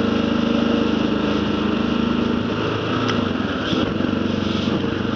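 Kawasaki KLR650's single-cylinder four-stroke engine running steadily while riding, with wind noise over it; the engine note drops slightly about halfway through.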